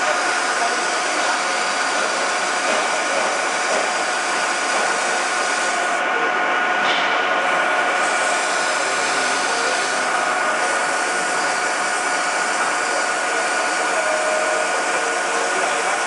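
Metal lathe running steadily with a steel bar turning in the chuck: an even whir with a constant high whine from the machine's drive.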